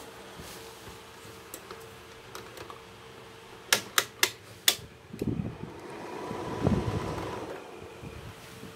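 Air conditioner fan running with a steady hum. Four sharp clicks come close together a little before the middle, followed by a louder rough rumbling noise for a couple of seconds.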